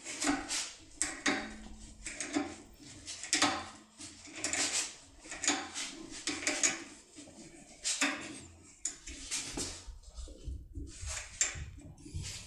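A self-tapping screw being turned into a metal lock cylinder with a hand-turned puller/screwdriver: repeated metallic scraping and clicking strokes, irregular, one or two a second.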